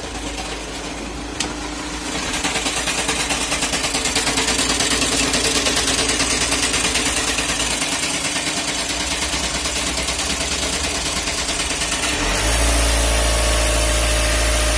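Volkswagen Passat 2.0 TDI diesel engine running, heard from beneath the car at the gearbox, with a fast, regular pulsing through most of it. About twelve seconds in, the engine note steps up and becomes steadier and deeper.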